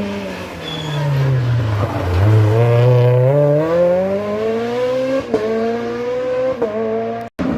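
Turbocharged Rally2 rally car engine coming off the throttle, its pitch falling for about two seconds, then accelerating hard with the pitch climbing. There are two quick upshifts about five and six and a half seconds in, and the sound cuts off abruptly just before the end.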